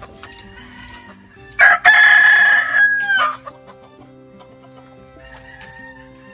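A rooster crows once, loudly, about one and a half seconds in; the crow lasts under two seconds and ends on a falling note.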